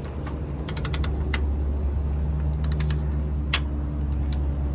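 Socket wrench clicking on the starter's mounting bolts: a few sharp metal clicks about a second in, a quick cluster near three seconds and one more shortly after, over a steady low hum.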